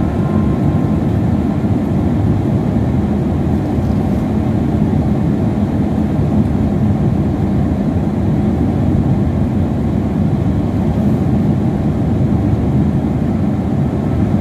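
A car being driven: steady rumble of road and engine noise heard from inside the cabin.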